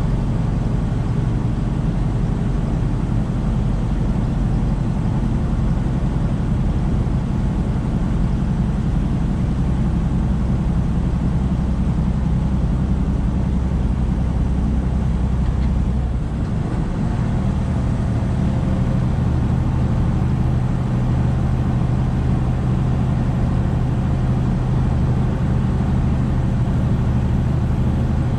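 Tractor-trailer's diesel engine and road noise while driving at a steady speed. About two-thirds of the way through, the engine note dips briefly and settles at a different pitch.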